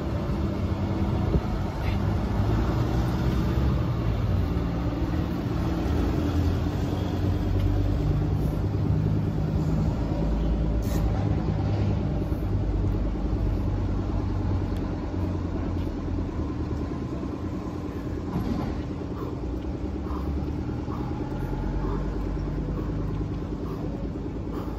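A steady low engine drone, running throughout.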